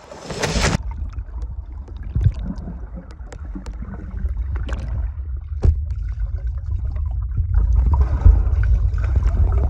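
Underwater sound through a phone's microphone sealed in a waterproof diving case: a splash as it goes under, then a muffled low rumble of water against the case, with a few sharp clicks.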